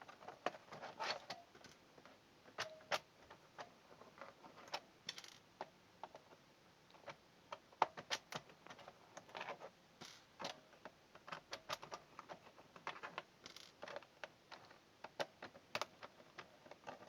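Irregular small clicks and taps as an old mechanical keyboard is taken apart: a screwdriver working its screws and hands handling the plastic case.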